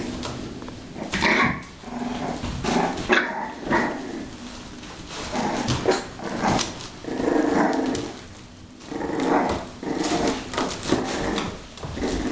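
A litter of six-week-old bulldog puppies playing, with bouts of small growls, yips and barks, loudest about a second in and again in the second half, amid scattered clicks and knocks.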